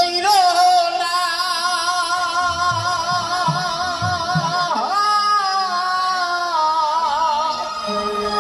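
Bengali folk song: a male singer holds long, wavering notes into a microphone over a band, with a few soft drum strokes between the notes.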